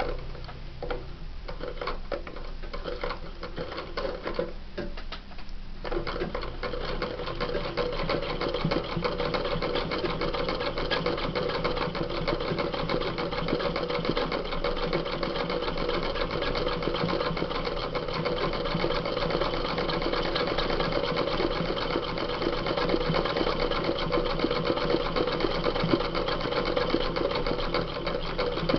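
Sewing machine doing free-motion embroidery on denim with no presser foot. For about the first six seconds it makes a few slow, separate stitches, then it runs steadily at fast stitching speed.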